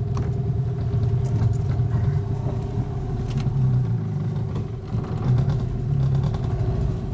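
Small boat motor running steadily at low speed: a constant low hum with a steady whine over it, and a few faint clicks.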